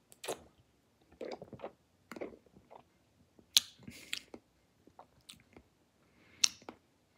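A person swallowing a sip of beer and then smacking the lips and clicking the tongue while tasting it: a scattering of short, wet mouth clicks and smacks.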